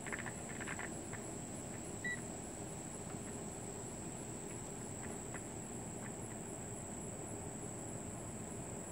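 Steady high-pitched trill of crickets in the background, with a few light clicks in the first second and a single short electronic beep about two seconds in.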